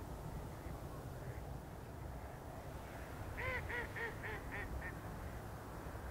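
Waterfowl calling from a flock in flight: a quick series of about six nasal calls, each fainter than the last, about halfway through, over a steady low background rumble.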